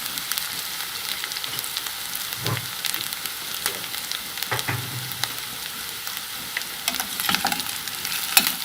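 Onions sizzling as they fry in hot oil in a pot, with scattered clicks and scrapes of a spoon stirring, more of them near the end.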